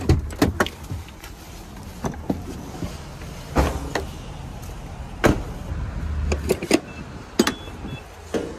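A van door opening with a click, then footsteps in sandals on concrete and scattered clicks and clunks of handling a gas pump. A few short high beeps come near the end.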